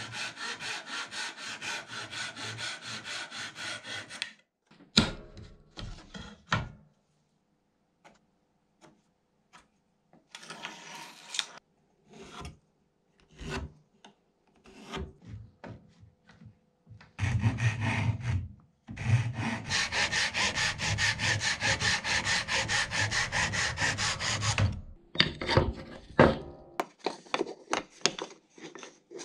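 Handsaw cutting through a wooden board with quick, even strokes, stopping about four seconds in. Then come scattered knocks and the handling of wood pieces, a second long bout of sawing in the second half, and a few more knocks near the end.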